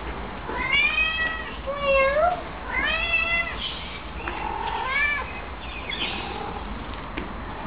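Domestic cat meowing four times, each call bending up and down in pitch.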